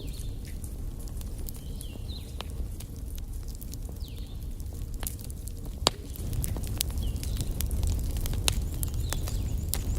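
Wood fire burning in a fireplace: a steady low roar of flames with scattered crackles and snaps from the burning logs. There is one sharp pop about six seconds in, and the roar grows louder after it.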